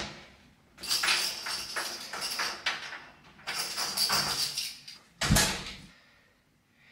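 Apartment front door being shut and its lock worked by hand: two stretches of rattling and scraping from the latch and lock. About five seconds in comes a single heavy thump.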